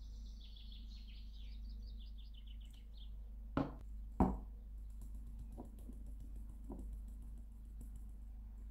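A songbird sings a run of quick repeated chirps, then come two sharp knocks as a stainless steel bowl is tipped against a plastic container, followed by a faint hiss of flour pouring into the container.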